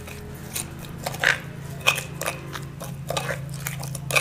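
A spoon scraping and clicking against a ceramic bowl as a wet paste of oil, ginger-garlic paste and ground spices is stirred, in irregular strokes about two or three a second, over a steady low hum.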